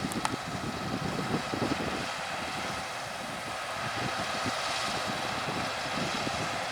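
Harvest machinery, combine harvesters and grain-carting tractors, running with a steady engine drone.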